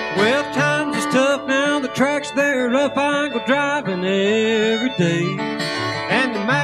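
Fiddle and flatpicked acoustic guitar playing an instrumental break of a bluegrass tune. The fiddle carries a sliding, bending melody over the guitar's picked accompaniment.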